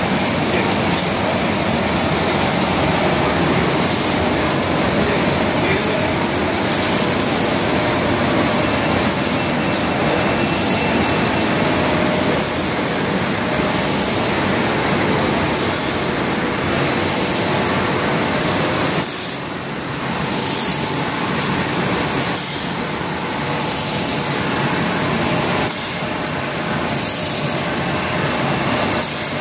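MTM RIZE 108E automatic film laminating machine running: a steady, loud machine noise, with a short hiss repeating about every one and a half seconds.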